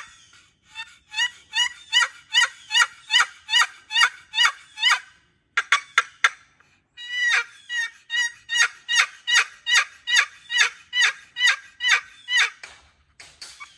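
Long turkey box call, a sycamore paddle lid stroked across a solid cedar box, run in series of hen yelps at about three notes a second, each note falling in pitch. A few short, sharp strokes break the two runs about halfway through.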